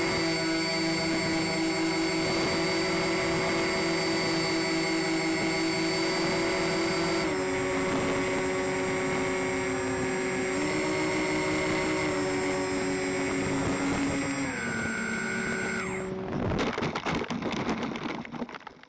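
Onboard sound of a radio-controlled model C-124 Globemaster's motors and propellers running steadily, their pitch stepping down three times. About sixteen seconds in the motors cut and the model lands, rattling and scraping across gravel before it stops near the end.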